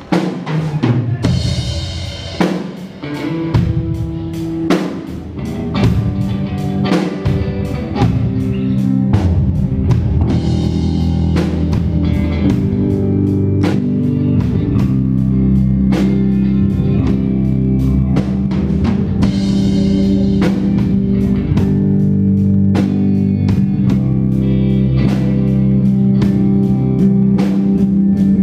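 Live rock band playing with electric guitars and a drum kit. Scattered drum hits and guitar chords open it, then from about eight seconds in the full band plays together on a steady beat.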